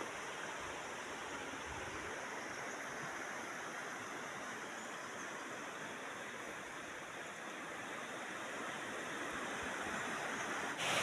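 River water rushing past: a steady, even rush of flowing water.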